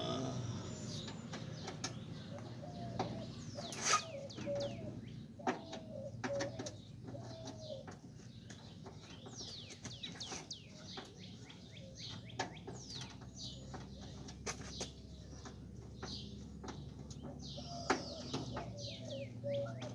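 Birds chirping with many short, quick high notes, mixed with scattered sharp clicks and taps over a low steady hum.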